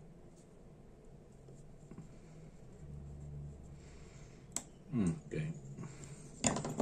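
Small screwdriver working on the metal parts of a Dupont Minijet lighter. A long stretch of faint room tone gives way to a light click about four and a half seconds in, then a short sharp metallic clatter near the end.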